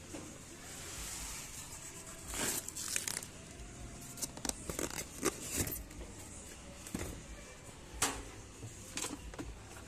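Plastic packaging being handled: crinkling and rustling with scattered sharp clicks and light knocks.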